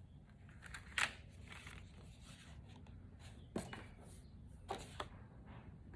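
Faint handling of a cardstock card over quiet room tone: three brief papery rustles or taps, about one second, three and a half seconds and nearly five seconds in.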